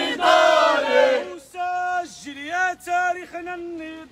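Crowd of protesters chanting a slogan in Arabic together. About a second and a half in, a single voice carries on alone with long, drawn-out notes, leading the chant call-and-response style.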